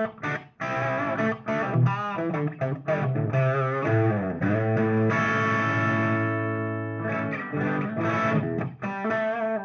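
Electric guitar played through a Baroni AFK150 hybrid tube-preamp pedal amp into a Marshall cabinet, on the drive channel with the guitar's volume knob rolled down so the distortion cleans up and stays bright. A phrase of bent and vibrato notes, then a chord held ringing for about two and a half seconds in the middle, then more notes near the end.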